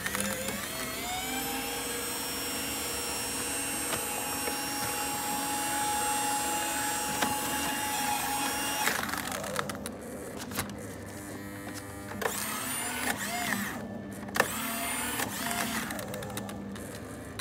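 Staples desktop paper shredder's motor spinning up and running steadily, a whine with a rising pitch at the start, as it cuts black cardboard. About nine seconds in it cuts off, and only short whirring starts and stops with clicks follow as a thicker piece of card is pushed into the slot that the shredder cannot take.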